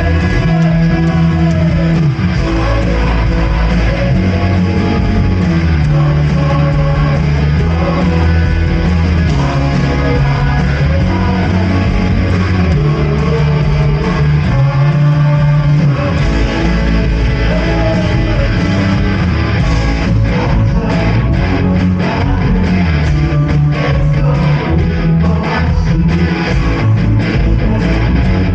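A live worship band playing a praise song, with electric guitar and bass guitar carrying the chords. Drums become busier about two-thirds of the way through.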